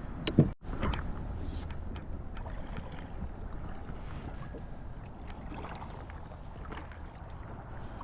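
Sounds of a kayak on a river: steady water and wind noise with scattered small clicks and knocks, and one short louder sound about half a second in.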